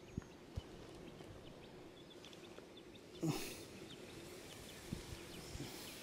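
Quiet outdoor background with a couple of sharp soft knocks at the start, a short louder rustle-like noise about three seconds in, and a few faint knocks near the end.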